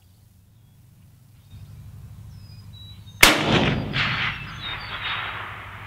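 A single shot from a Mosin-Nagant M91/30 PEM sniper rifle in 7.62×54mmR fitted with a Bramit suppressor, a sharp report about three seconds in that rolls away in a long echo.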